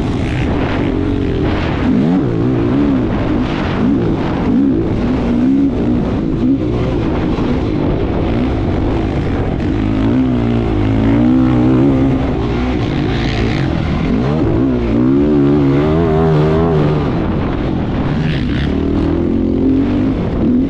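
Competition vehicle engine revving hard and dropping off again and again, its pitch rising and falling with each burst of throttle through the run.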